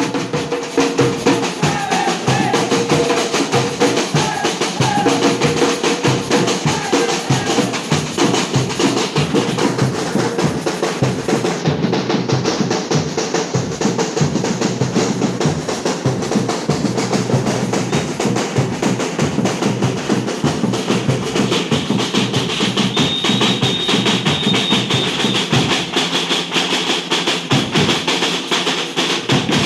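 Batucada samba drum ensemble playing a fast, dense, continuous rhythm on bass and snare drums.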